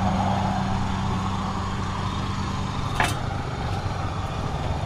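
A motor vehicle engine idling with a steady low hum, and a single sharp click about three seconds in.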